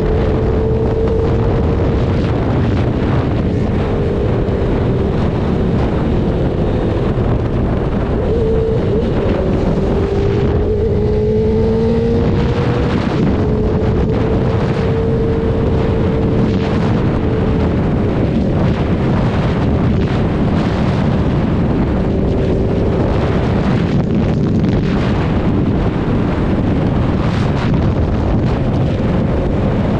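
Motorcycle engine running while riding, its note drifting up and down with throttle and speed, under steady wind rush on the microphone.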